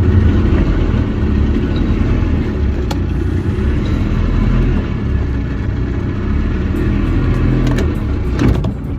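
Motorboat underway, its 1994 Mercury 90 hp two-stroke outboard running with a steady, loud low rumble.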